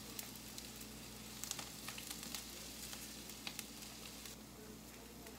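Hot frying pan sizzling faintly as fried onion is scraped out of it with a silicone spatula, with light scraping clicks; the sizzle stops about four seconds in.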